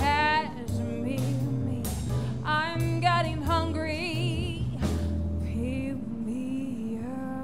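Background music: a song with a singing voice that wavers in pitch, over a bass line and drums.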